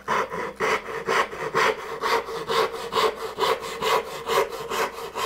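Fine-toothed backsaw cutting a small wooden block held in a vise, a steady rasp of about two strokes a second as the saw cross-cuts the joint's cheek.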